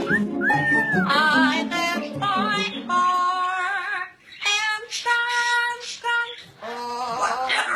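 A high voice singing a string of drawn-out, wavering notes with vibrato, broken by short pauses.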